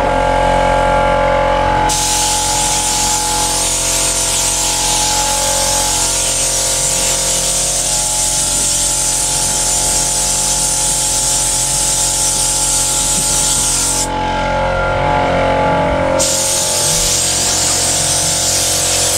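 Pressure washer jet spraying water in a long, steady hiss. It starts about two seconds in, stops for about two seconds, then starts again.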